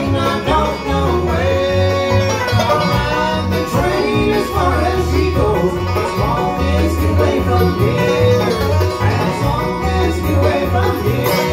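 Bluegrass band playing live: upright bass keeping a steady beat under mandolin and acoustic guitar.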